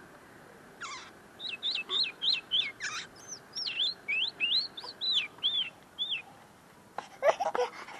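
Common linnet singing: a run of clear whistled notes, each sliding up or down, about three a second. Its keeper says the bird is still finishing clarifying its notes. A short, louder, lower sound comes near the end.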